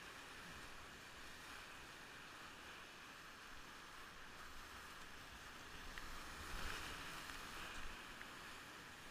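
Big-water whitewater rapid rushing steadily around a kayak, with a louder surge and low thuds about six to eight seconds in as waves break over the bow.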